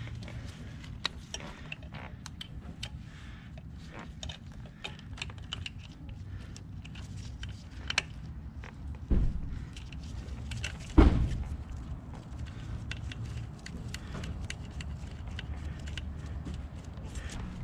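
Gloved hands handling and fitting a rubber hose on a motorcycle engine: many small clicks and rustles, with two louder knocks about nine and eleven seconds in, over a low steady rumble.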